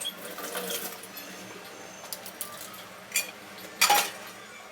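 Kitchen utensils and dishes clinking and clattering, with a louder clatter just before the end.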